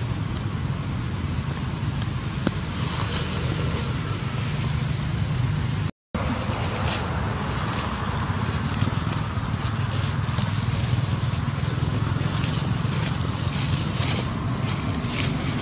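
Steady outdoor background noise, a low rumble with a hiss over it, that cuts out for an instant about six seconds in.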